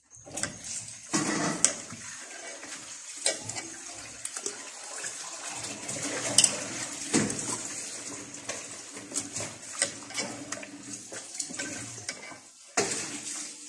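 Hands rubbing a wet chermoula marinade of herbs, lemon and spices into whole raw chickens in an enamel bowl: continuous wet squelching and slapping with many small smacks.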